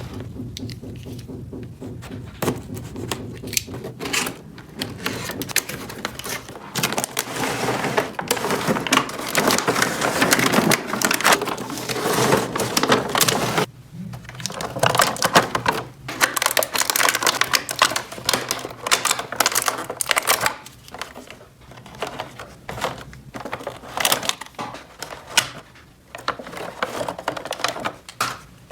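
Small plastic toy kitchen pieces clicking and clattering as they are handled, with longer stretches of dense rustling noise in the middle.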